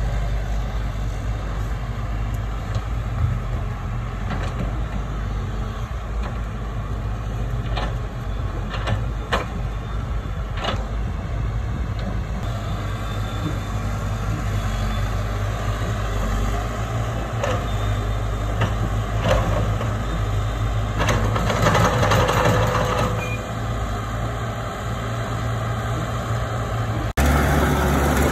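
Heavy diesel earthmoving machinery running steadily, with a few sharp knocks and a short louder rush of noise about three quarters of the way through. Near the end it switches abruptly to a different, deeper engine sound.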